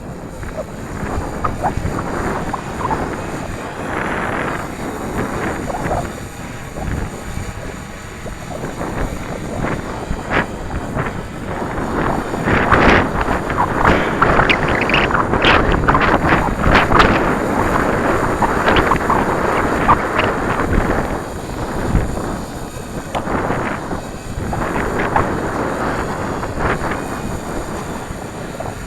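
Strong gusty wind buffeting the microphone, building to its heaviest gusts in the middle and easing off toward the end.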